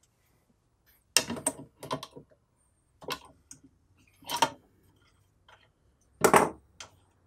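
A handful of sharp plastic-and-metal clicks and knocks, the loudest about six seconds in, as a stiff, sticking star knob on a Triton oscillating spindle and belt sander is forced loose by hand.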